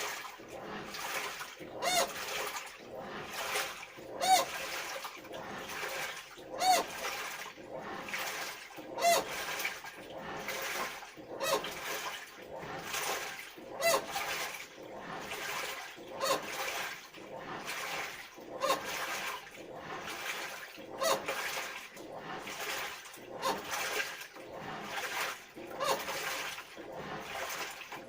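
Washing machine running a wash with water sloshing, and a loud abnormal squeak ('kyu-kyu') from the machine once with each stroke, about every two and a half seconds. The squeak is a fault.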